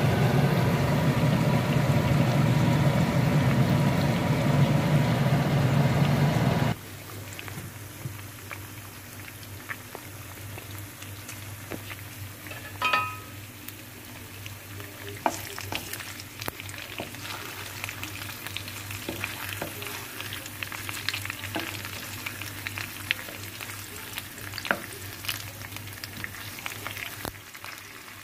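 Steak frying in oil in a nonstick pan: a steady sizzle with scattered pops and crackles. For the first seven seconds a loud steady low roar sits over it and then stops abruptly; a short electronic beep sounds about halfway through.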